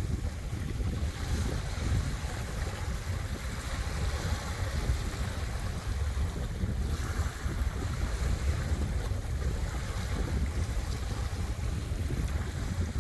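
Waves washing ashore at ebb tide, a steady noise that rises and falls slowly, with wind buffeting the microphone in a constant low rumble.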